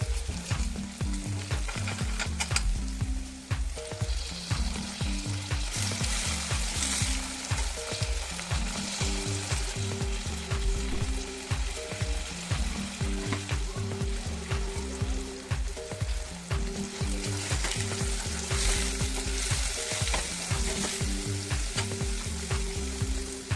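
Food frying in oil in a pan, a steady sizzle that swells twice, with stirring clicks from the utensil, over background music with a steady beat.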